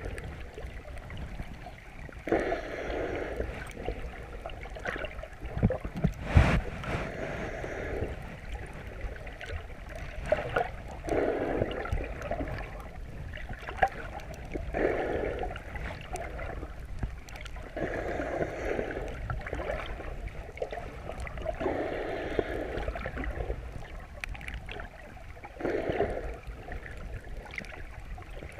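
Underwater sound through a GoPro housing: water noise with a swimmer's breathing coming in regular bursts about every three and a half seconds, and one sharp knock about six seconds in.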